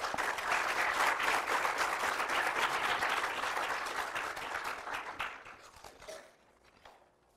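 Audience applauding, thinning out and dying away about six seconds in.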